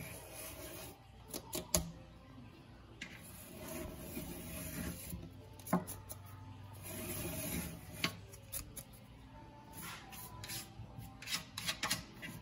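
Toothbrush bristles scrubbing back and forth along the joint between a stainless steel sink rim and the granite countertop, clearing the seam for new caulk. A few sharp taps punctuate the scrubbing.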